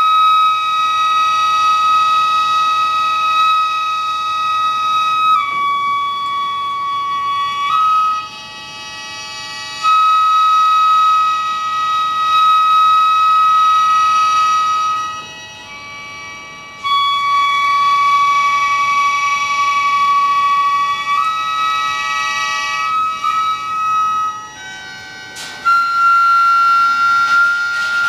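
Traditional Japanese gagaku wind music: several reed and flute tones held together as long chords under a melody that holds each note for seconds before stepping to the next, easing off briefly three times.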